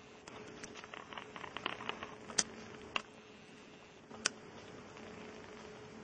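A parrot right at the camera making a quick run of small clicks and taps, then three sharper clicks spaced about half a second to a second and a half apart, over a faint steady hum.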